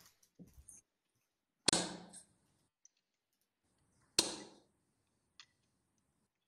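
Darts thudding into a bristle dartboard: two loud hits about two and a half seconds apart, each ringing away briefly, after a fainter knock.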